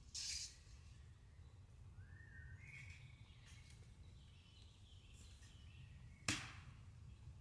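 Faint forest ambience with a low steady rumble and a bird call that slides up then down, followed by a few faint high notes. A brief hiss comes at the very start, and one sharp crack about six seconds in is the loudest sound.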